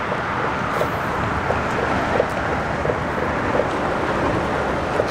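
Steady rushing noise of road traffic crossing a highway bridge overhead, mixed with wind on the microphone.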